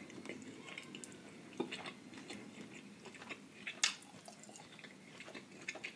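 Faint close-up eating sounds: soft chewing with wet, squishy clicks as fingers dig into a glass dish of seafood boil in butter sauce. Two sharper clicks, about one and a half and four seconds in.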